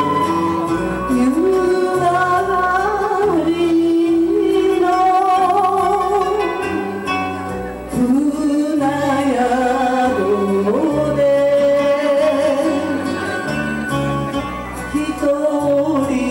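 A woman singing a Japanese kayōkyoku (popular ballad) song through a microphone, wavering on long held notes, over an instrumental backing with a steady bass line. There is a short break between sung phrases about eight seconds in.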